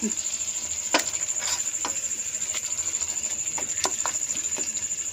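A metal-tipped wooden spatula scraping and knocking against a kadai as minced beef is stir-fried, with irregular sharp clicks about every half second over a low frying sizzle.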